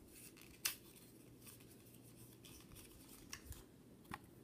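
Small perfume box being opened by hand, very faint: one sharp click about two-thirds of a second in, then a few softer clicks and rustles near the end.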